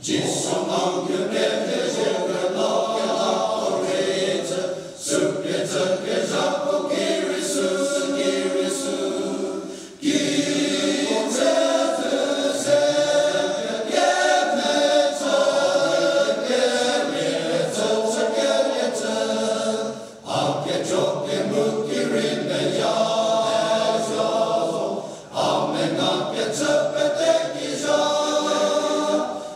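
Large men's choir singing, with short breaks between phrases about every five seconds.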